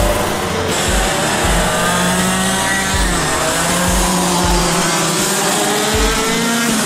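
Music with a steady kick-drum beat, about two beats a second, over a go-kart engine whose note rises and falls with the throttle.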